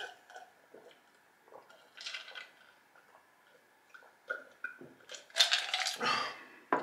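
A man drinking from a mug: quiet sips and swallows with small mouth clicks, then a loud breathy exhale about five seconds in as he lowers it.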